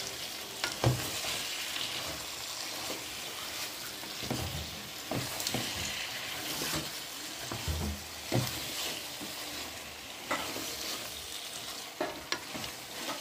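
Chopped vegetables and tomatoes sizzling as they fry in a metal pot, stirred with a wooden spoon that scrapes and knocks against the pot now and then.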